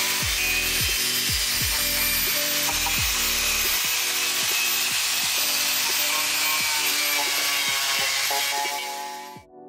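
Background electronic music with a deep kick drum and held notes, under a loud, steady hiss from a power tool working on metal. The hiss cuts off suddenly near the end, leaving the music alone.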